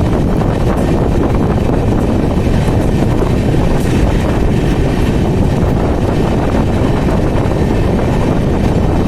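Passenger train running through the station with a loud, steady rumble of its wheels and carriages on the rails.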